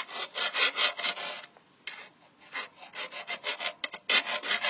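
Hand file rasping back and forth on a bicycle's metal crank where the pedal was removed, rounding and thinning it so a drill chuck can grip it. Repeated scraping strokes, pausing briefly about one and a half seconds in, then resuming faster near the end.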